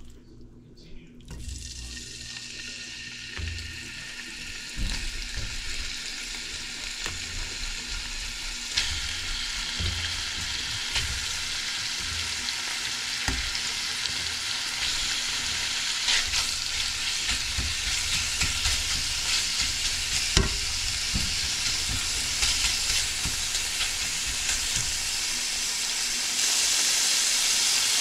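Chicken pieces frying in a pan: a sizzle that builds as the pan gets hot and grows louder, with a step up near the end, and a few knocks as the meat is moved about.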